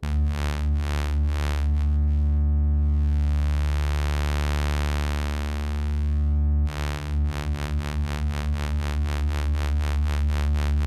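Held synthesizer pad chord from an eDNA Earth patch in Kontakt, its sawtooth and triangle-wave layers crossfaded back and forth by the oscillate mixer, so the tone pulses in brightness several times a second. In the middle the pulsing gives way to a slow, smooth swell as the mixer speed is changed, and it starts again about two-thirds of the way through.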